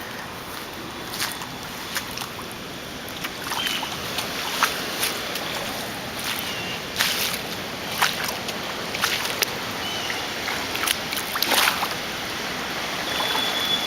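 Someone wading through floodwater on foot: water sloshing around the legs, with irregular splashes roughly once a second that get louder after the first few seconds.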